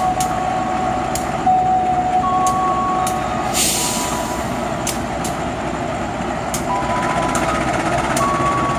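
Diesel-electric locomotive of a passenger train running at the platform: a steady rumble with two whining tones that switch on and off, a brief hiss of air about three and a half seconds in, and scattered sharp clicks.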